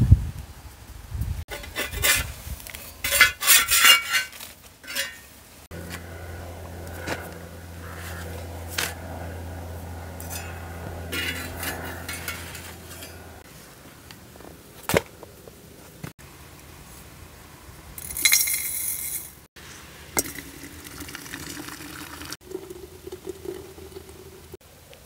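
Cookware and dishes clinking and rustling in short bursts while flatbread is handled over a griddle fire, then hot water poured from a kettle into a glass teapot near the end, a steady pouring tone lasting about two seconds.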